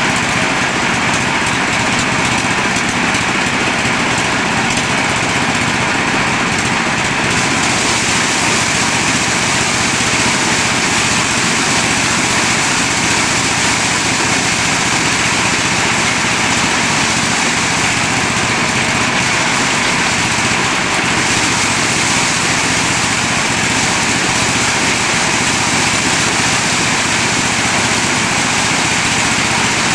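Motorised corn sheller running steadily: a loud, dense mechanical noise that gets hissier about seven seconds in.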